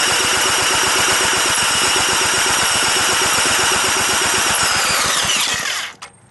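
Electric drill spinning an antique 5 HP Briggs & Stratton engine over through a socket on the flywheel nut: a steady motor whine over a rapid low pulsing, with the engine not firing. About five seconds in the drill lets off, its whine falling in pitch, and it stops about a second later.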